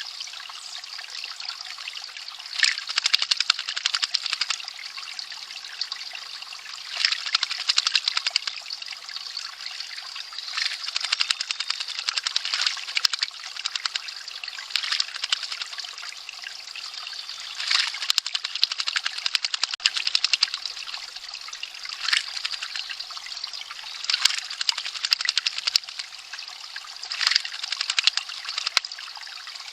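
Spring water trickling steadily, broken by about ten short bursts of splashing every few seconds as an American robin bathes in it.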